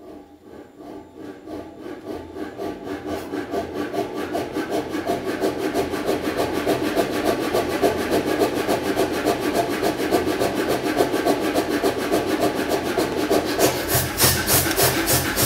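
Self-contained pneumatic power hammer starting up: its compressor pumps in a fast, even rhythm that speeds up and grows louder over the first several seconds, then runs steadily. Near the end the beats turn sharper and brighter.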